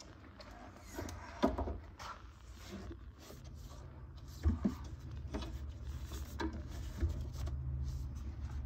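Handling noise at a Porsche 911 GT3 RS 4.0's rear engine lid: a sharp clunk about one and a half seconds in as the lid is opened, then scattered knocks as a hand moves about the engine bay, over a low steady hum that builds from about halfway.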